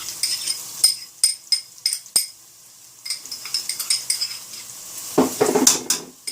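A metal spoon clinking and tapping against cookware as ginger garlic paste is scooped into the pot of frying onions: a string of sharp, ringing clinks, then a louder clatter and scrape near the end.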